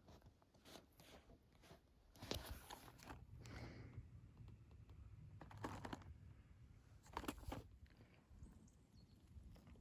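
Faint, irregular rustling and crunching handling noises, a few short bursts a second or two apart.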